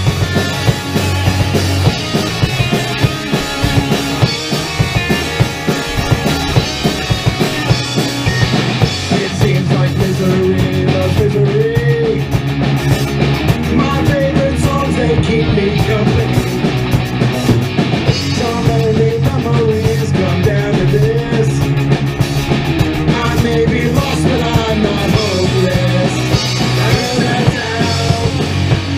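A three-piece rock band playing live: drum kit, bass guitar and electric guitar in a steady, driving punk-rock groove, with a wavering melodic line over it in the middle.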